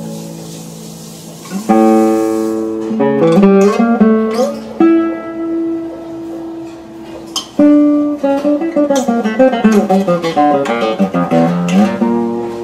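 Solo nylon-string Spanish (classical) guitar being played: plucked chords and melody notes, with a loud chord about two seconds in, a long held note in the middle, then a quick run of notes.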